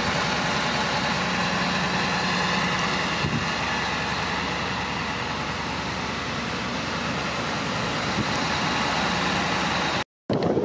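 Fire engine's diesel engine idling steadily, a constant low hum over a wide even noise.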